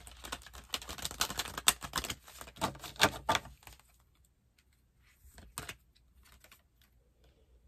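A deck of tarot cards shuffled by hand: a fast, dense run of card flicks and slaps for about four seconds, then just a few soft flicks.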